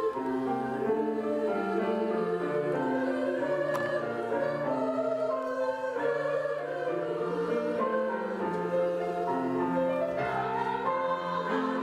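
Women's three-part choir singing with piano accompaniment, the voices holding sustained notes in harmony.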